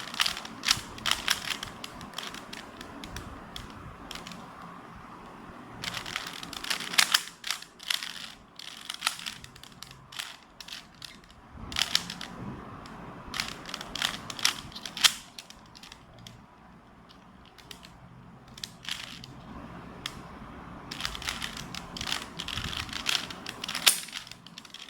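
A plastic Rubik's cube being twisted by hand: flurries of quick clicking and rattling as its layers turn, four bursts with quieter pauses between.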